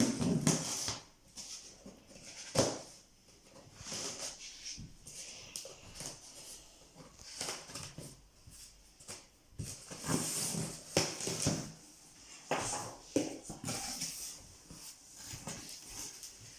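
Receiver box and its packaging being opened by hand: irregular rustling, crinkling and scraping, with occasional knocks.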